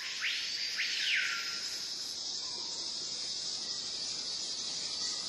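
Steady high-pitched insect chorus, with a bird's whistled call that sweeps up steeply and slides back down in the first second or so.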